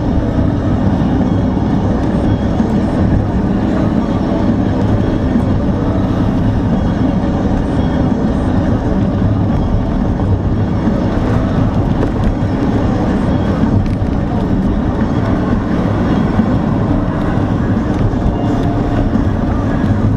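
Steady running noise of a car driving, engine and tyres together, with no changes in level.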